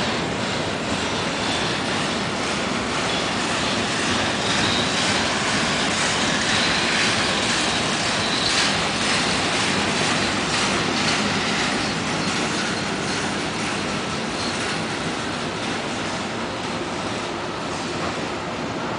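Freight train cars rolling past close by: a steady rumble and rattle of steel wheels on rail, with a faint high wheel squeal and light clicks over the rail joints.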